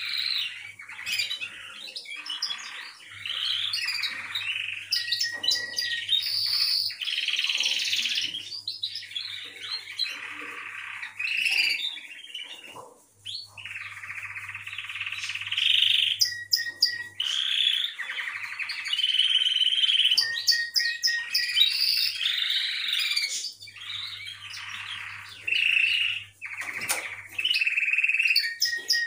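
Domestic canary singing: long phrases of rapid trills and rolls broken by short pauses, with a few brief clear held whistle notes.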